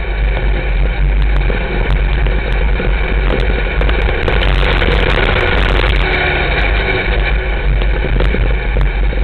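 Sport modified dirt-track race car's V8 engine running at racing speed, heard loud and steady from inside the cockpit with a heavy low rumble.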